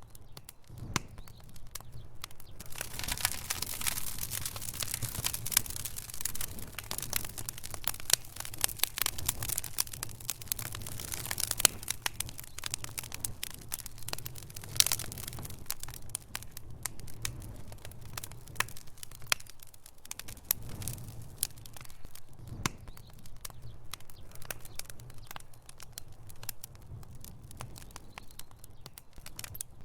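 Wood fire burning in a fireplace, crackling: a constant run of sharp pops and snaps over the hiss of burning logs, with the hiss thicker for several seconds near the start and a few louder pops scattered through. A steady low hum runs underneath.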